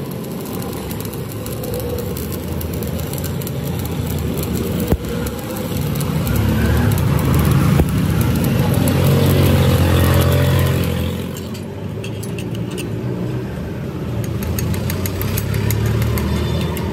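Arc welding on a broken crankshaft journal: a dense crackling hiss over a steady low hum. The hiss drops away about two-thirds of the way through, leaving the hum and scattered sharp clicks.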